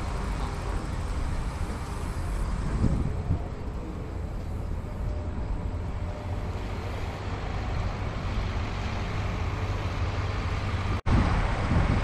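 Steady low rumble of farm machinery: a tractor running the grain cart's auger as it unloads soybeans into a semi-trailer. Near the end the sound drops out for an instant and comes back louder and more uneven.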